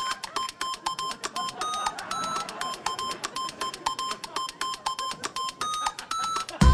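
Rapid electronic beeping, about four to five short beeps a second, mostly on one pitch with a few higher beeps, cut off near the end by a sudden loud burst of electronic music.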